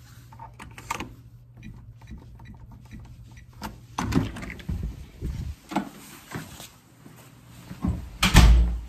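A door being opened and handled, with clicks and knocks, then shutting with a heavy thud near the end. A steady low hum stops about four seconds in.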